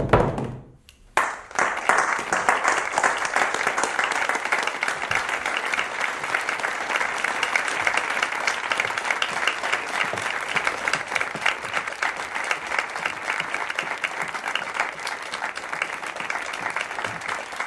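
A crowd of guests applauding, breaking into clapping about a second in after a short silence and keeping it up steadily.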